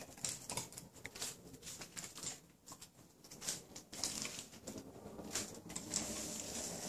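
Small long-haired dog sniffing at the floor in short, quick snuffles, with light irregular clicks of its claws on wooden parquet.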